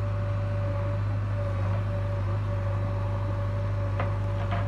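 JCB 3DX backhoe loader's diesel engine running steadily while the backhoe digs, a low drone with a steady higher whine over it. Two short sharp knocks near the end.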